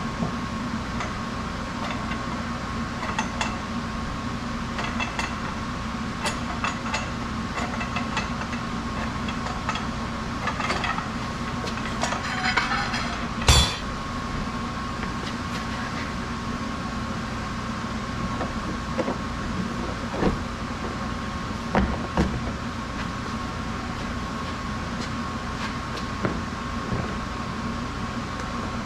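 Metal hand tools clinking and tapping on steel parts, with a dense run of clicks and then one loud sharp metal knock about halfway through, over a steady machine hum with a constant high tone.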